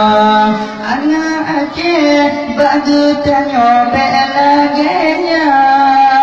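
A man's voice singing a slow, melismatic religious chant in Acehnese, holding long notes with slow slides in pitch, one voice without accompaniment.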